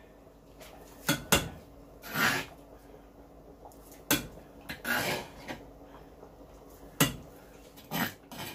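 A metal spoon scraping and knocking against a grinding bowl and the rim of a saucepan while mashed cocoyam is scooped into soup. There are about five sharp clinks, with two short scrapes between them.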